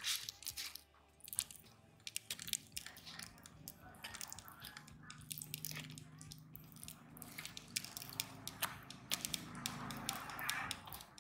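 Metal spoon stirring and mashing flour into mashed potato in a small clay bowl: soft scraping and squishing, with many light clicks of the spoon against the bowl.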